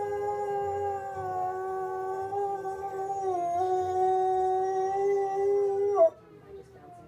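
Soft coated wheaten terrier howling in one long, held howl that wavers briefly and breaks off about six seconds in, set off by the fire whistle. The whistle is heard more faintly, falling in pitch after the howl stops.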